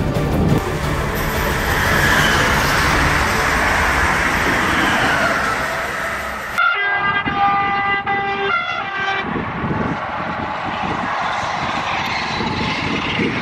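Talgo 350 high-speed electric train rushing past, then its horn sounds twice about halfway through, a long blast and a short one, before the rush of the passing train returns.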